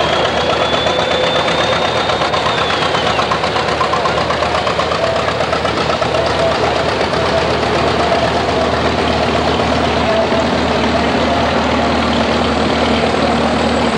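Old farm tractor engines running steadily at low speed as the tractors roll past, first a green John Deere, then a red tractor.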